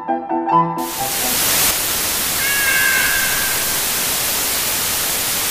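Piano music stops less than a second in and is replaced by loud, steady TV static hiss. About two and a half seconds in, a cat meows once over the static: a high call of about a second that falls slightly at the end.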